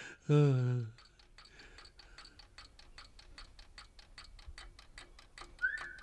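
Mechanical clock ticking faintly and steadily, several ticks a second, after a short sound from a man's voice at the very start. A whistled tone starts near the end.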